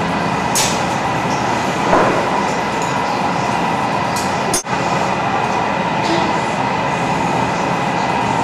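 Steady, loud roar of the gas burners and combustion blowers in a glassblowing hot shop, with faint steady hums in it. There are a few brief hisses, and a sharp click with a momentary dropout about halfway through.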